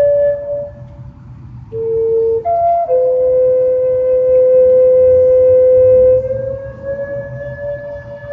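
Slow instrumental worship music of long held notes, several sounding together, moving to new pitches a couple of times in the first three seconds and gliding slightly upward around six seconds in.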